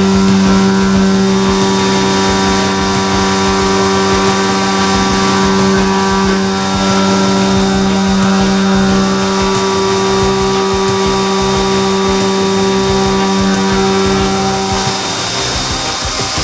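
Leadwell V40 CNC vertical milling machine running: a steady, even-pitched machine hum over a constant hiss, the hum stopping about fifteen seconds in.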